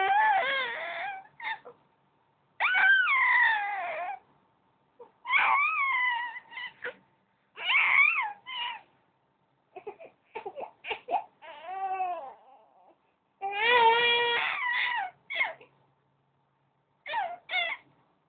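Baby making high-pitched, cry-like squeals in about eight bouts of one to two seconds, each bending in pitch, with short pauses between. It is unclear whether she is upset or happy.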